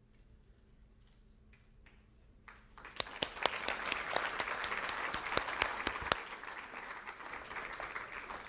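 Audience applauding. The clapping starts about two and a half seconds in after a quiet stretch, is loudest for a few seconds, then thins out toward the end.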